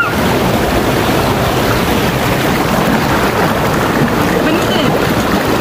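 Shallow river rapids rushing steadily, with water churning and splashing around a person sitting in the current.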